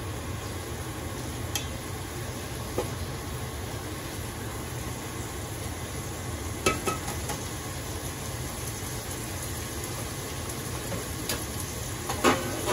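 Pork and sliced onion sizzling as they sauté in a stainless steel stockpot, stirred with a wooden spatula. A few light clicks and knocks of utensil on pot come through, the sharpest near the end.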